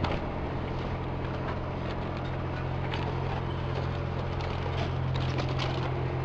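A steady low machine hum, with scattered light clicks and knocks.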